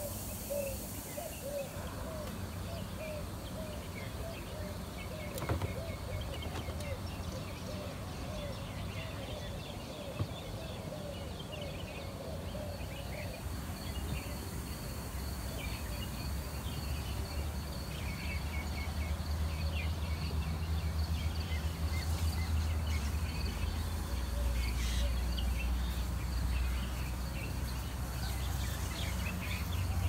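A chorus of birds chirping and calling, with a faint steady high tone under it. A low rumble builds up through the second half and is loudest near the end.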